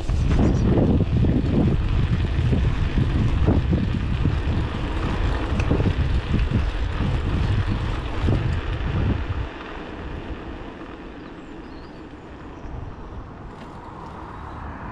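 Wind buffeting the microphone of a chest-mounted GoPro on a moving bicycle. It is a loud, low, gusty rumble, and about nine and a half seconds in it drops to a much quieter hiss as the bike slows for a stop junction.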